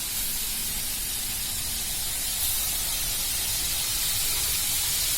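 Fish frying in hot oil in a pan: a steady sizzling hiss that gets a little louder about two and a half seconds in.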